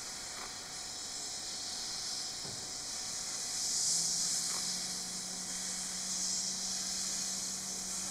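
C57 steam locomotive hissing steam. The hiss swells about four seconds in, when a steady low hum joins it.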